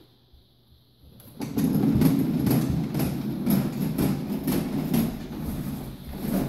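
Plastic wheels of a toy shopping cart rolling over a hardwood floor: a steady rumble with rattling clicks, starting about a second and a half in.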